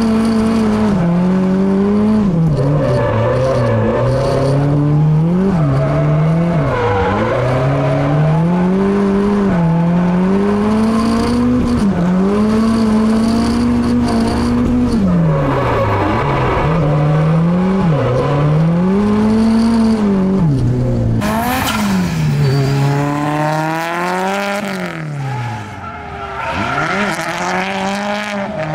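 Honda K24 inline-four engine in a drifting car, revving up and falling back over and over as the throttle is worked through the slide, heard from inside the cabin. About 21 seconds in the sound changes to trackside, with tyre squeal over the engine as the car drifts with smoke pouring off the rear tyres.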